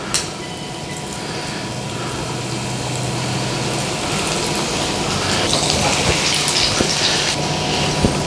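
Breadcrumb-coated chicken breasts shallow-frying in hot oil, a steady crackling sizzle that grows louder after a second piece is laid into the pan about halfway through. A sharp click just after the start.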